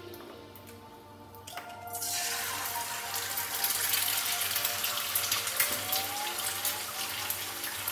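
Egg frying in hot oil in a wok: a loud, steady sizzle that starts about two seconds in as the egg hits the oil, with light crackling.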